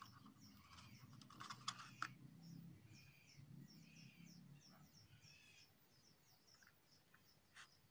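Near silence with faint bird chirps and calls repeating in the background, fading out after about five seconds; a couple of light clicks about two seconds in.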